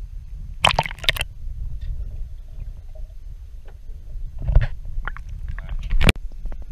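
Water sloshing and gurgling against a camera held at the water's surface, with a steady low rumble and sharp splashes as it breaks in and out of the water: two close together about a second in, another around the middle, and a sharp one near the end.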